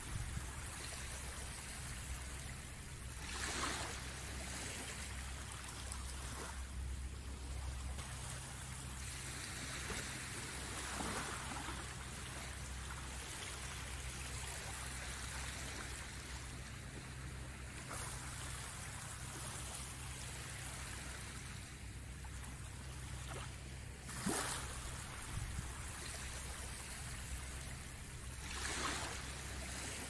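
Small waves of a calm sea washing up a sandy beach: a steady wash of water with a louder rush each time a wave breaks at the shore, four times.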